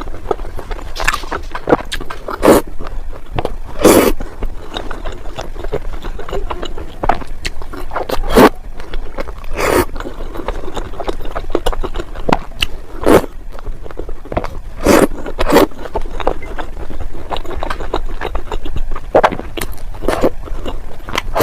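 Eating sounds close to the microphone: irregular sharp crunches, clicks and scrapes, with a dozen or so louder ones spaced unevenly.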